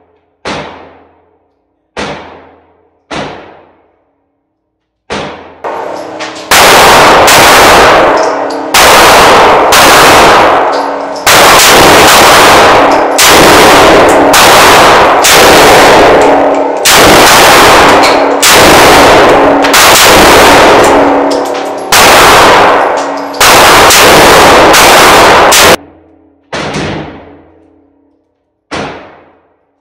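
Rapid gunfire from an AK-pattern pistol in an indoor range. A few single shots ring out with echoing tails in the first five seconds. Long strings of fast shots, loud enough to clip, follow in quick succession with short pauses between them until about 26 seconds in, then single shots return near the end.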